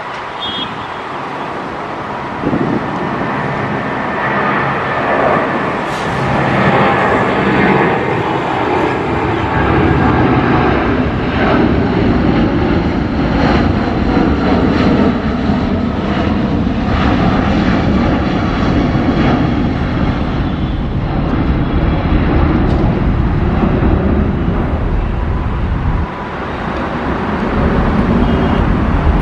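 Boeing 777's twin jet engines climbing out after takeoff: a loud, steady rush and rumble that builds over the first few seconds as the airliner passes overhead. The sound dips briefly near the end, then rises again.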